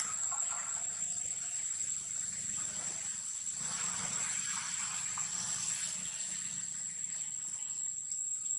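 Steady high-pitched drone of forest insects holding one even tone. A faint rustling hiss swells briefly about midway.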